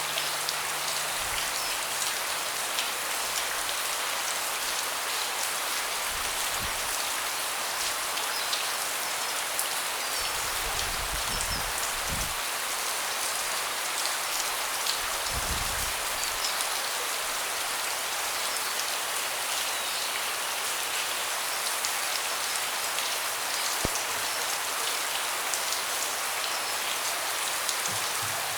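Steady rain falling on a deck, with individual drops ticking through an even hiss of rain. A few brief low rumbles come about a third and halfway in.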